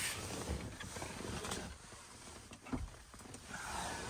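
Faint rustling and handling noise over a low rumble, with a single short knock about two-thirds of the way through.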